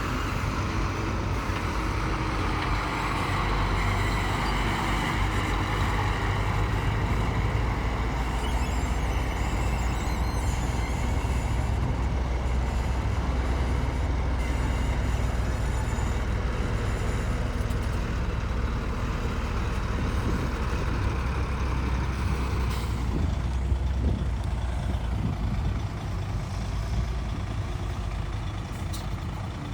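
Heavy diesel earthmoving machinery running steadily under load: a deep engine rumble with broad mechanical clatter. It eases slightly about 26 seconds in.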